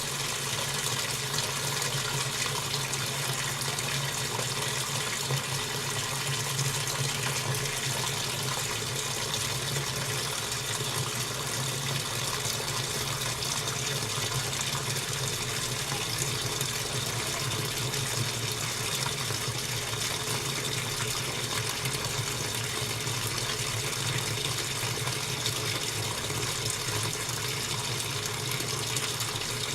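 Washing machine running, with a steady rush of water over a low hum.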